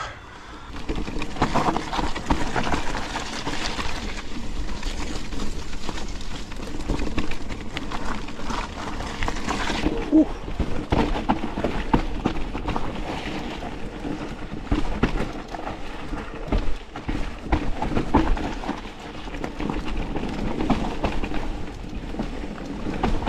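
Electric mountain bike ridden over a rough dirt trail: steady tyre and wind noise with frequent knocks and rattles as the bike goes over bumps.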